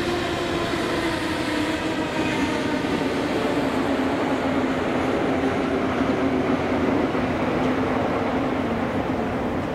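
A train running, its steady rumble carrying a whine of several tones that slowly drops in pitch.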